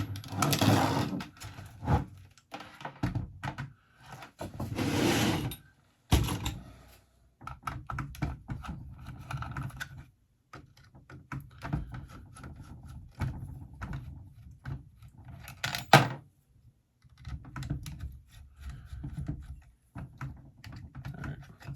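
Small parts, connectors and tools being handled and set down on a workbench: irregular clicks, taps and clatter, with two longer rustling scrapes, near the start and about five seconds in, and one sharp loud click about sixteen seconds in.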